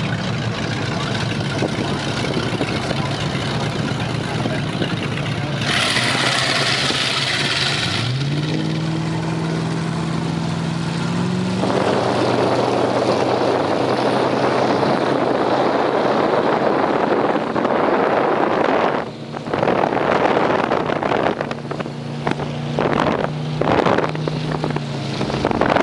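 Performance powerboat engine running, its pitch rising as it throttles up about a third of the way in, followed by a loud, steady rush of wind and water as the boat runs at speed. Near the end the rush dips and breaks up unevenly, with several knocks.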